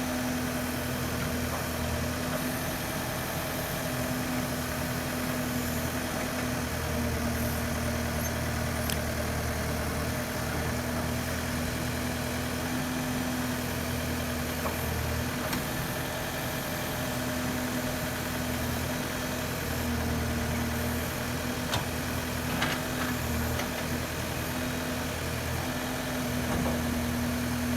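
Diesel engine of a Case 770FX backhoe loader running steadily, its low rumble swelling and easing slightly every few seconds, with a few faint clicks.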